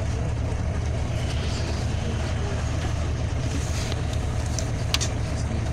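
Scania OmniLink CL94UB city bus heard from inside the passenger cabin: a steady low engine drone with rumble, and one sharp click about five seconds in.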